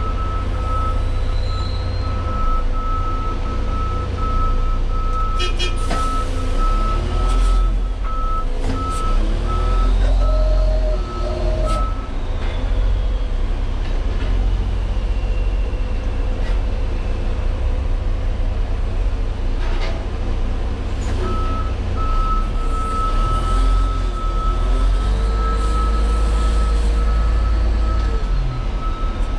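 LGMG CMT96 off-highway dump truck's diesel engine running, heard from the cab, with a rapid pulsing electronic alarm beep for the first twelve seconds or so and again from about two-thirds of the way through. A few sharp knocks along the way.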